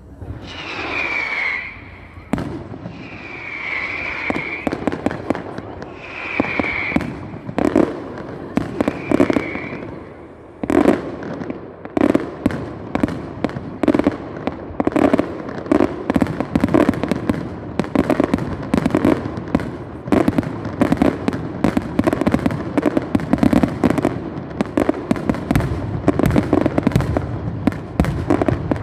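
Fireworks display: four whistling shells going up one after another, each a short curved whistle, then from about eleven seconds in a dense, rapid barrage of bangs and crackles.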